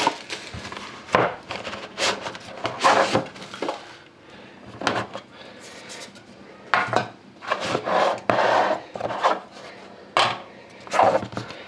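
A boxed card set being opened on a wooden desk: cardboard boxes rubbing, sliding and knocking against the tabletop in a dozen or so irregular bumps and scrapes.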